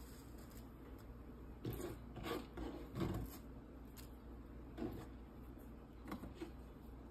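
Quiet kitchen handling: a few soft rustles and light knocks as a hand drops fresh coriander leaves onto dal in a pan, over a low steady hum.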